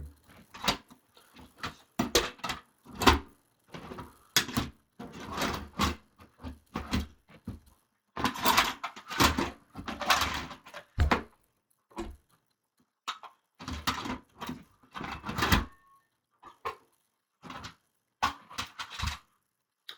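Keys jangling and clinking, mixed with irregular knocks and rattles of hands rummaging and handling things.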